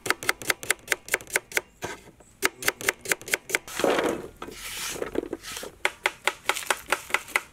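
Knife chopping vegetables on a wooden cutting board, rapid even strokes about five a second, with a short break and a brief rustling swell about halfway through before the chopping resumes.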